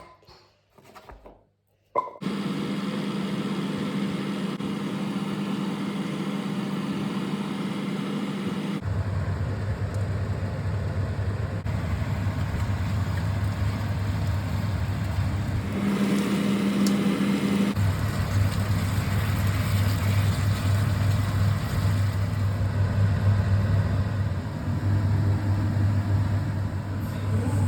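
A steady mechanical hum from a running motor or fan, switching on abruptly about two seconds in. Its pitch drops to a deeper hum about nine seconds in, rises again briefly around the sixteen-second mark, then settles back to the deeper hum.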